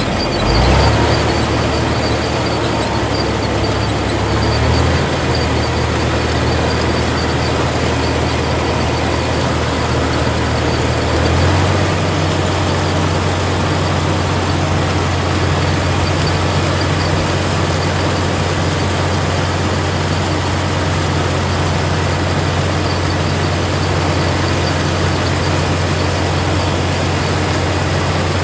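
Vintage John Deere tractor engine running steadily while powering a New Idea two-row corn picker, under a dense mechanical noise. The engine note steps up slightly about five seconds in and again about eleven seconds in, then holds.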